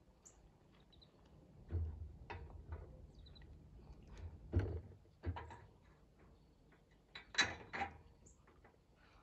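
Scattered knocks and clunks from hand work on a snow plow's frame, about half a dozen of them, the loudest about halfway through and again near the end.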